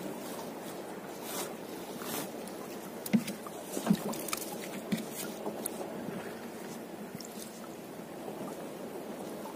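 A wet fishing net is hauled by hand over the side of a small boat, with a steady wash of dripping and splashing water. Several sharp knocks against the boat come through it, the loudest a little after three seconds and near four seconds.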